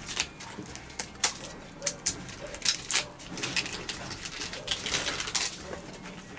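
Dry, dead bark of a palo de Brasil (Dracaena fragrans) trunk being peeled and snapped off by hand: a string of sharp, irregular cracks and crackles.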